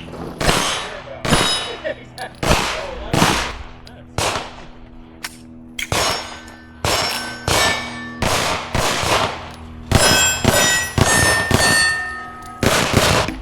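A fast string of pistol shots with the ringing clang of bullets striking steel plate targets. The shots come in quick runs with short pauses between them, and the plates ring on after the hits.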